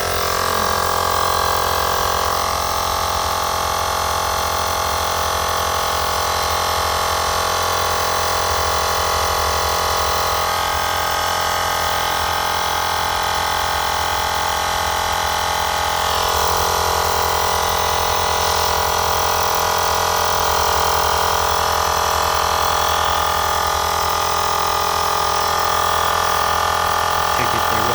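Xiaomi Air Pump 2 rechargeable air compressor running steadily, inflating a tyre from low pressure, its motor giving a constant mechanical drone with a steady pitch that shifts slightly a few times.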